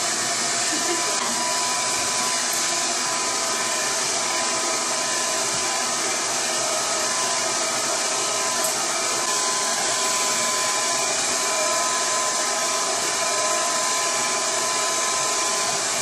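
Red by Kiss double-layer pik blow dryer running steadily on its high setting: a loud, even rush of air with a constant whine from its motor.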